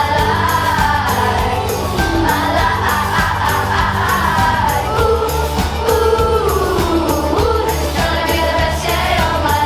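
A song playing: a sung melody over a steady beat and bass.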